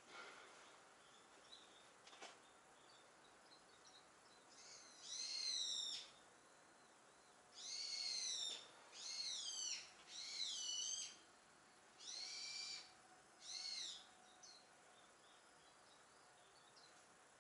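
A bird calling from outside: six loud, high whistled calls, each under a second and bending in pitch, in the middle stretch, over a faint steady hiss.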